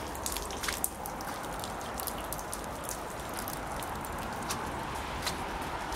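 Footsteps on a wet, muddy gravel path: irregular light crunches and squelches over a steady outdoor hiss.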